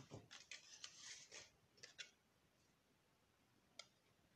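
Faint rustling and tapping of a cardstock box being handled, then a few small scissor snips trimming a paper tab, the last a short click near the end.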